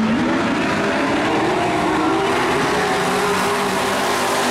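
A pack of dirt-track stock race trucks' engines running together as they circle the track and come past, a loud, steady mass of several engine notes at once.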